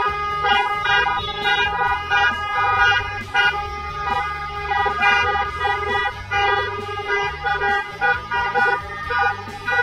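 Background music with sustained, organ-like chords over a moving bass line and light percussion.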